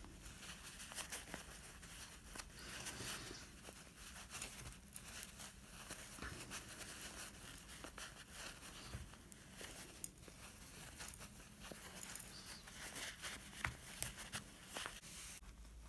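Faint rustling and crackling of fibre stuffing being pulled apart and pushed by fingers into a small fabric heart, with scattered light clicks.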